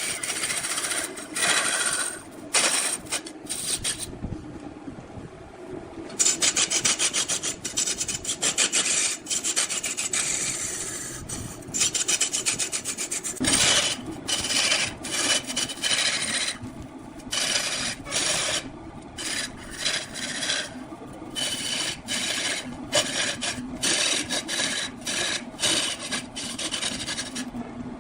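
A tool scraping and cutting into wood spinning on a wood lathe, in repeated rasping passes broken by short pauses, with a quieter stretch about four seconds in.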